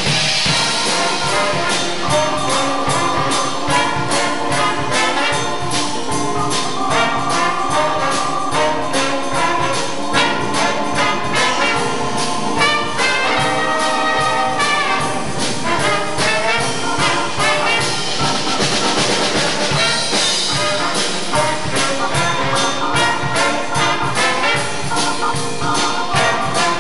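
Small jazz band playing live: horns (saxophones, trumpets, trombones and a sousaphone) over a drum kit keeping a steady beat.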